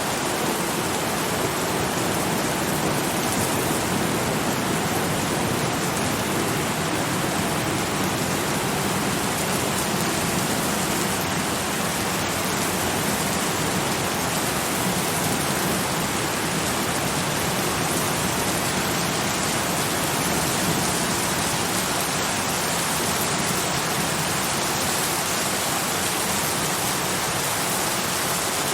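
Steady heavy rain falling on a surface, a dense, even hiss with no distinct drops or thunder.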